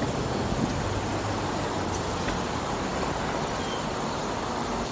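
Steady city traffic noise heard from a moving bicycle.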